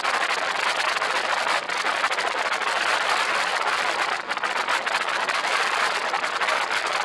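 Ultralight floatplane in flight: a steady rush of air streaming past the microphone, blended with the engine and pusher propeller, with no distinct tone.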